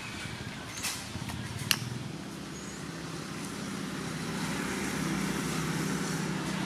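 Soup at a rolling boil in an aluminium pot, bubbling with a steady low rumble, with two sharp clicks in the first two seconds. A metal ladle stirs through it in the second half, as the rumble grows a little louder.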